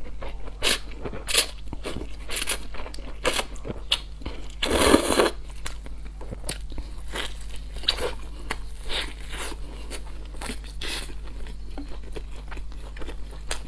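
Close-miked eating: slurping spicy instant noodles and biting and chewing a crispy fried dumpling, with many short wet clicks and crunches. One longer, louder slurp comes about five seconds in.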